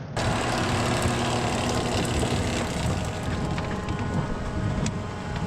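Farm machinery running steadily: an engine's constant noise with faint steady tones over it.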